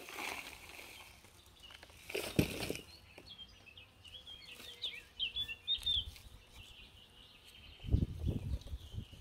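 Gloved hands scraping and rustling through potting soil, with a small songbird singing in the background for a few seconds in the middle, and a few low bumps near the end as a terracotta pot is handled.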